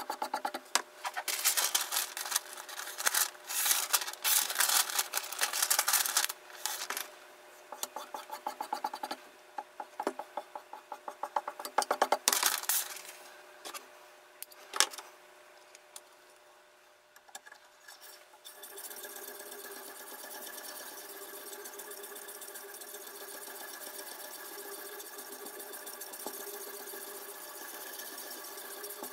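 Irregular bursts of rapid metallic clicking and scraping as a kitchen knife is handled and fitted into the metal clamp of a guided knife-sharpening system. About two-thirds of the way in this gives way to a steady, even hum.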